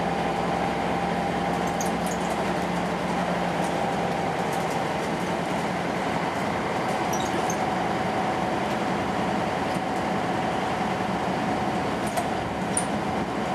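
Inside a Volvo B10M single-deck bus on the move: its underfloor six-cylinder diesel drones steadily under road noise, with a steady whine above it and a few faint light rattles.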